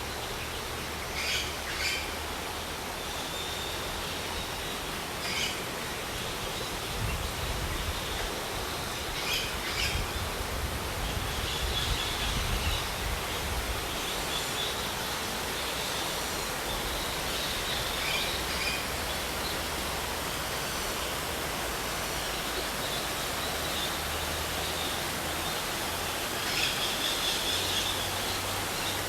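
Birds giving short, scattered calls over a steady rushing background noise, with a low rumble for a few seconds near the middle.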